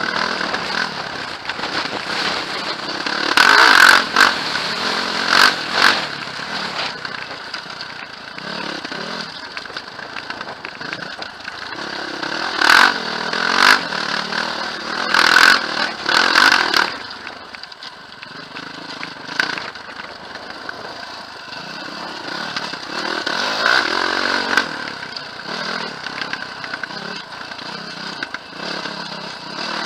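Quad bike (ATV) engine running steadily as it is ridden over a rough, bumpy dirt track, with louder noisy surges about four seconds in, around the middle, and again about twenty-four seconds in.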